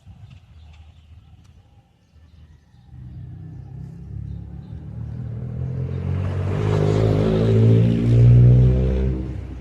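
A motor vehicle's engine approaching and passing close by: it grows steadily louder for several seconds, is loudest near the end, then quickly fades.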